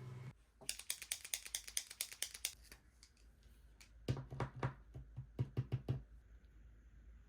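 Two quick runs of small, sharp clicks and taps from stationery being handled at a desk: one about a second in, a second louder run a little past the middle. Faint room tone follows.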